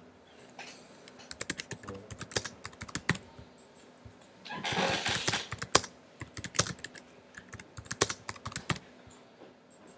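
Typing on a computer keyboard in two quick runs of key clicks, filling in a web form's title and then its body text. A brief rush of noise comes about halfway through, between the two runs.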